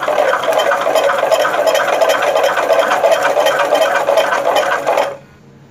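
A hand-cranked generator rig built from a motorcycle alternator, spinning fast with a dense mechanical clatter from its gears and shaft. The clatter stops abruptly about five seconds in.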